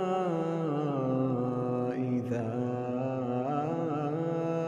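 A man's voice reciting the Quran in melodic tajweed chant, holding one long drawn-out note that slowly rises and falls, with a brief consonant about two seconds in.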